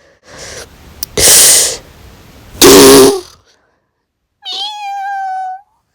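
Ear-splitting meme sound effects: two very loud, distorted noise blasts, then a single held high-pitched cry like a cat's meow.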